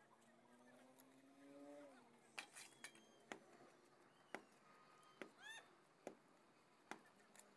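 Near silence: faint scattered clicks about once a second, with a faint drawn-out distant call near the start and a few short chirps midway.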